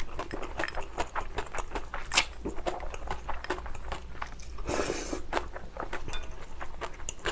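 Slurping spicy cold noodles (naengmyeon) and chewing, with many small wet mouth clicks and a longer slurp about five seconds in.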